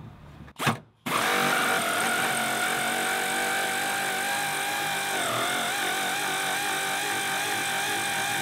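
Cordless power drill/driver running steadily on a seat-mounting bolt, starting abruptly about a second in, with a brief dip in pitch midway. The bolt is spinning in place rather than coming out, since the nut underneath turns with it.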